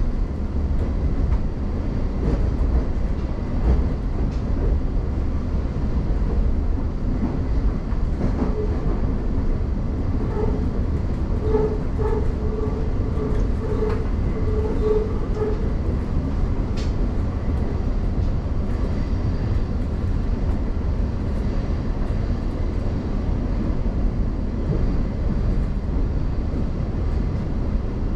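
Class 717 Siemens Desiro City electric train running between stations, heard from inside the carriage: a steady, loud rumble of wheels on rail. Around the middle, a pitched tone comes and goes several times over the rumble.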